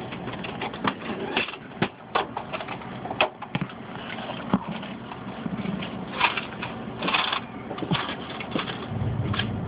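Handling noise from a hand-held camera: rustling of a hooded sweatshirt against the microphone with irregular small clicks and knocks, and a low rumbling thump near the end.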